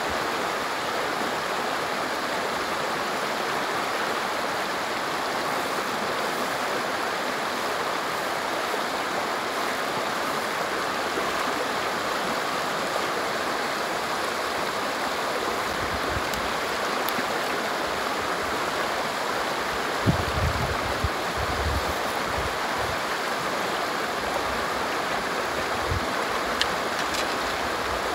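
A rocky river rushes steadily over shallow riffles and small rapids. About two-thirds of the way through there are a few short low thumps.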